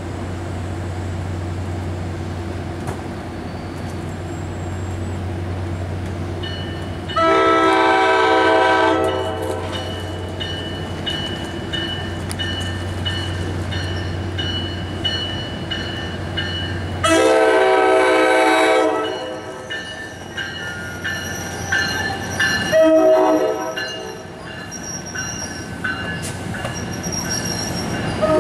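Air horn of an arriving NJ Transit Multilevel commuter train, a chord of several tones, sounding two long blasts about ten seconds apart and then shorter ones, over a steady low train rumble that fades out at the second blast. Another long blast begins at the very end.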